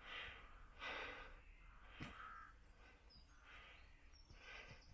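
Near silence with a few faint breaths, one about every second, and a small tick about two seconds in.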